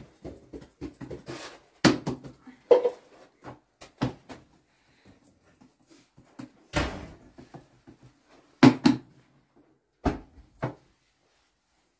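Thin flatbread dough being slapped and patted by hand onto a cloth-covered cushion: a series of irregular soft thumps and slaps, a few louder than the rest.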